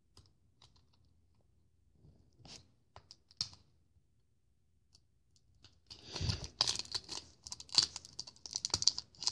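Fingers handling and unwrapping a small plastic toy jar. A few faint clicks come first, then from about six seconds in a dense run of plastic crinkling and clicking.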